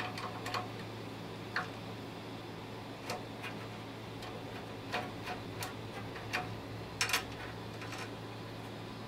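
Short metallic clicks and taps at irregular intervals, a dozen or so, with a close pair about seven seconds in, as a screwdriver and fingers work at a Solidoodle 3 3D printer's extruder carriage. A steady low hum runs underneath.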